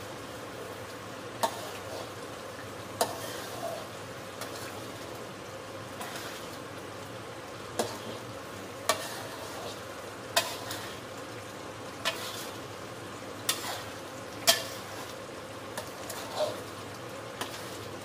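Sambal terasi simmering and sizzling in a wide metal pan as it is stirred with a metal spatula, a steady hiss broken by sharp pops and clicks every second or two.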